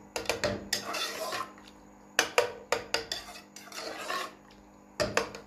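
Metal spoon scraping and clinking against the sides and bottom of a pot as thick carrot halwa is stirred while its milk cooks down. It comes in several bursts of quick knocks with short pauses between them.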